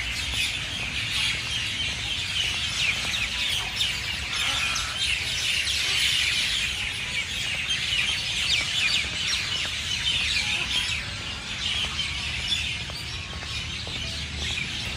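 Dawn chorus: many birds chirping and chattering at once in the trees, a dense, unbroken stream of short high calls.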